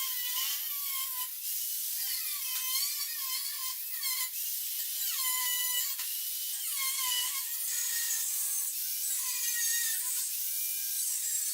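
Power tool cutting metal discs for clamp pads, a steady grinding cut with wavering, squealing tones that rise and fall every second or so.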